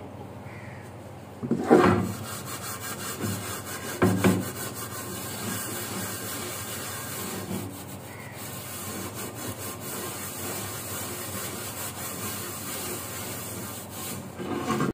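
Kitchen utensils being scrubbed by hand with a scourer: a steady rasping rub of quick repeated strokes, with two knocks of dishes being handled about two and four seconds in.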